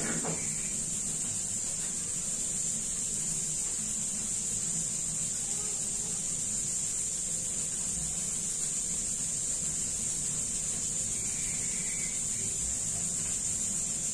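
A steady high-pitched hiss that does not change, with a few faint soft handling sounds.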